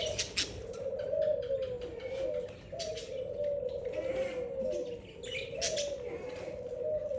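Pigeons cooing without a break in a low, wavering tone, with short sharp clicks and chirps scattered over it.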